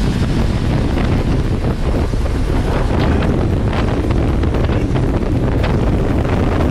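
Turbocharged Honda L15 four-cylinder engine of a longtail boat running steadily at speed, heard on board under heavy wind buffeting on the microphone, with rushing water and spray.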